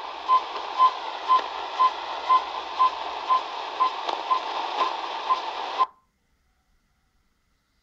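CODAR long-range HF ocean surface radar received on a shortwave radio in AM mode at 13,495 kHz: a short beep about twice a second over static hiss. About six seconds in, the sound cuts off abruptly as the receiver is switched to SSB.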